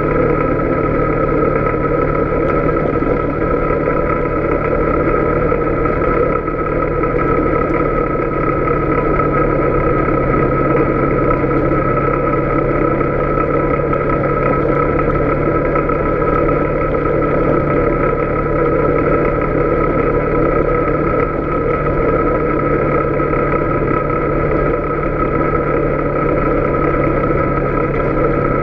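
Polaris Sportsman 570 ATV's single-cylinder engine running at a steady cruise, with a steady whine over the engine and road noise.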